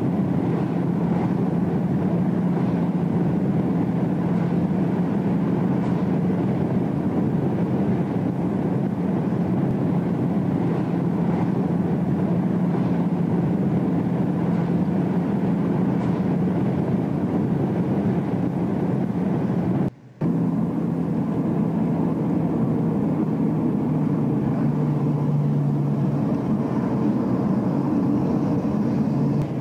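Car engine and road noise heard from inside the cabin, a steady drone with a constant low hum. The sound drops out for a split second about twenty seconds in, then carries on.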